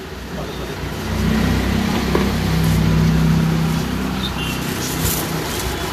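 An engine running close by, its steady hum swelling over a second or two and then fading away. A plastic bag crinkles briefly near the end.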